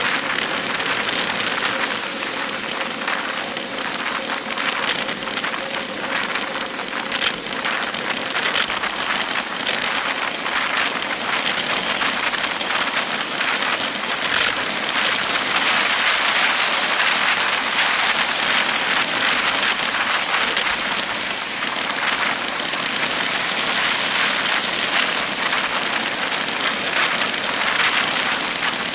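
Wind and road noise from a bicycle riding fast, heard on a handlebar-mounted camera: a steady loud hiss with scattered sharp clicks and knocks.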